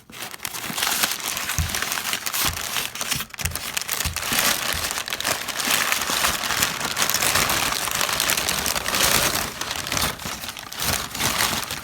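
Packaging material crinkling and rustling continuously as hands rummage through an opened shipping box, with a few dull knocks near the start.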